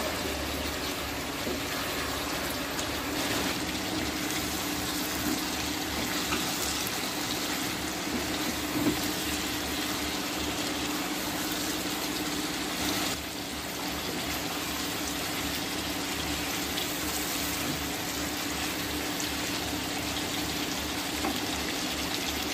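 Chicken curry cooking in a pan on the stove: a steady hiss of bubbling, sizzling gravy with a faint low hum underneath.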